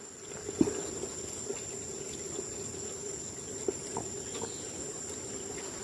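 Insects trilling in one steady, high, unbroken tone, with a few faint taps.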